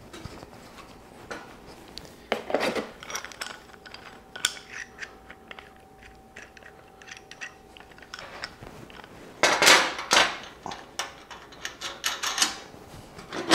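Metal welding-table hold-down clamps clinking and knocking against a perforated steel welding table as they are handled, adjusted and set into the table's holes. Scattered light clicks, with louder knocks about two and a half seconds in and again around ten seconds in.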